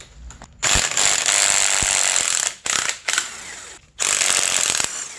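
Impact wrench hammering in four bursts, the first about two seconds long and the third quieter, breaking loose the bolts that hold the stator to the stator plate in a snowmobile engine's flywheel housing.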